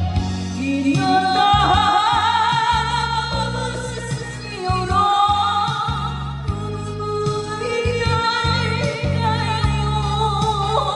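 Band music: an instrumental break in a Korean trot song, with a wavering lead melody over bass and a steady backing beat.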